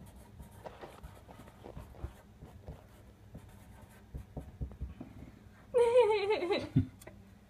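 Faint scratching and light taps of a marker writing on sticky notes stuck to a door. About six seconds in, a loud call of about a second cuts in, sliding down in pitch.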